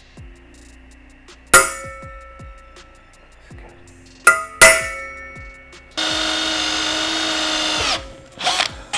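Three sharp, ringing taps of metal on metal, then a cordless drill running for about two seconds as it bores a small stress-relief hole at the end of a steel bicycle seat-tube slot, its pitch sagging slightly under load.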